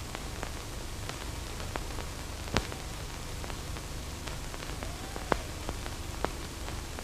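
Steady hiss and low hum of an aged 1930s optical film soundtrack, with scattered clicks and crackles; the loudest click comes about two and a half seconds in.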